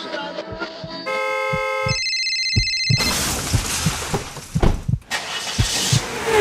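Two steady electronic tones, about a second each, the second higher-pitched, followed by a rush of noise with several sharp knocks and clicks.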